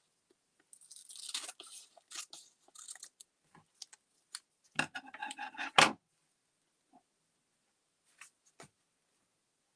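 Paper rustling and crinkling as a magazine cutout is trimmed and handled over a thick art journal. There is a denser patch of rustling about a second in, and a cluster of rustles about five seconds in that ends in a short, sharp knock, the loudest sound. After that there are only a few faint clicks.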